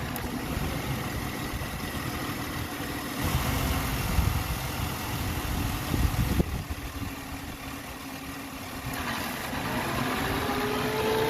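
Ford's engine idling under the open hood while the AC compressor clutch is brought in by hand, its control pin grounded through a test lamp so the compressor runs. A louder rushing stretch comes a few seconds in, and a faint rising whine near the end.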